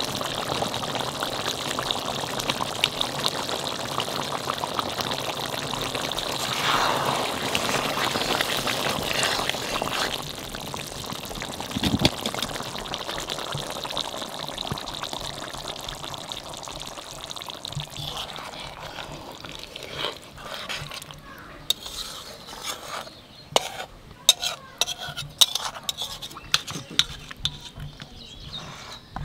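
Stingray curry simmering in a kadai with a steady sizzle. In the last third, a metal ladle clinks and knocks against the pot and a steel serving bowl as the curry is dished out.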